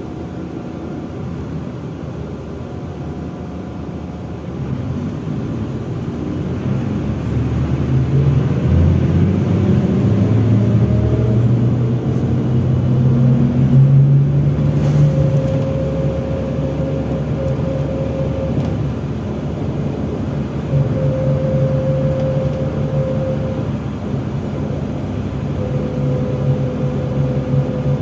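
MAZ-103 city bus heard from inside the passenger cabin as it accelerates: the engine note climbs and grows louder over the first half, then settles into steadier running with a thin whine that comes and goes.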